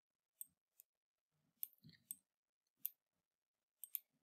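Computer mouse button clicking, faint, about seven sharp clicks, some in quick pairs.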